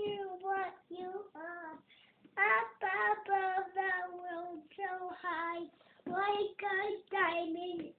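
A young boy singing, a tune in several short phrases with held notes and brief breaks between them.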